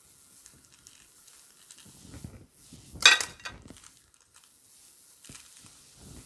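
Instant-ramen seasoning packet handled and shaken over a pot as its powder is poured in, with one short, loud rustle about three seconds in.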